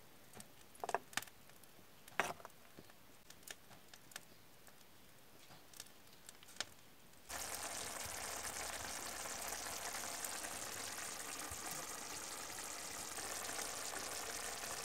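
A wooden spatula stirring a chilli chicken stew in a cast-iron pan, with a few soft taps and scrapes. About seven seconds in, a steady bubbling sizzle begins: the stew, with a little water added, boiling over a wood fire.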